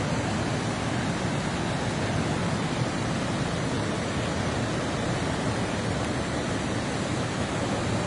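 Coquihalla River in flood, fast water rushing past the washed-out road: a steady, even noise with no change in level.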